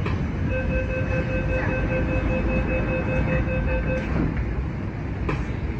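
Door-closing warning: a rapid run of beeps lasting about three and a half seconds, over the steady hum of a Kinki Sharyo–Kawasaki metro train standing at a platform. A single knock comes near the end.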